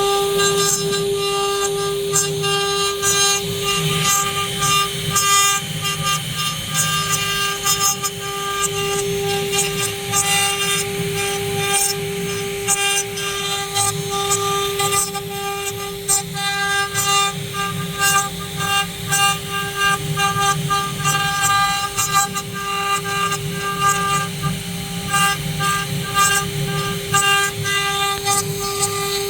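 Multi-spindle CNC wood router running, its spindles giving a steady high whine, with irregular crackling and rasping as the cutters work the wood.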